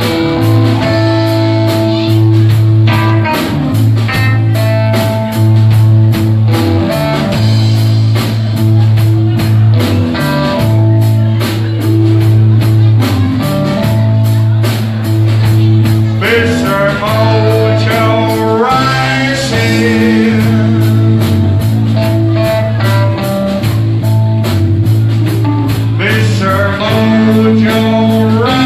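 Live rock band playing: drums with a steady hi-hat, bass and electric guitar, with a lead line bending in pitch about sixteen seconds in.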